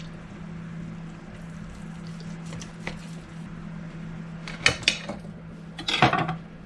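Serving utensils clinking and knocking against a plate while cooked roast beef and vegetables are dished up: a few light clicks, two sharp knocks, then a louder clatter near the end. A steady low hum runs underneath.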